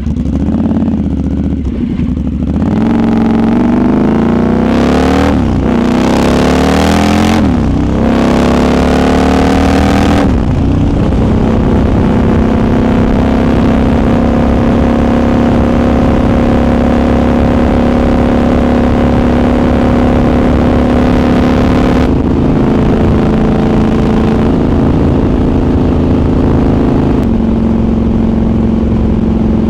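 Triumph Scrambler 1200's parallel-twin engine heard onboard, accelerating up through about three gears with a rising note and a break at each shift, then holding a steady cruise for the rest of the time.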